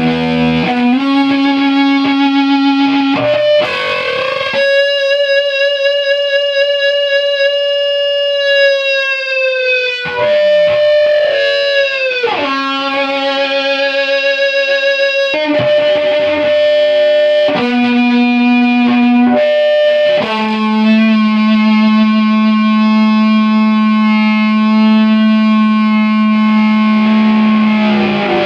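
Electric guitar played through a prototype compressor/fuzz/sustainer circuit: a run of single fuzzy notes, several held for a few seconds, one with vibrato. The last note, about twenty seconds in, sustains for about eight seconds.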